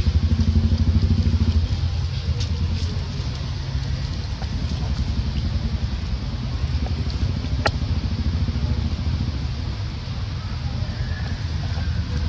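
A motor engine running steadily with a low, quickly pulsing note, a little louder for the first second and a half. A single sharp click comes about two-thirds of the way through.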